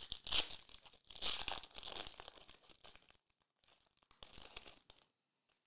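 A foil trading card pack wrapper is torn open and crinkled by hand, in a run of irregular rustling bursts. The bursts are heaviest in the first three seconds, come once more around four seconds in, and stop about a second before the end.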